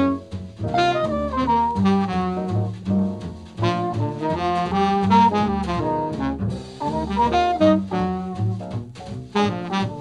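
Small jazz ensemble playing: saxophone and brass carry a moving melody line over double bass and drums.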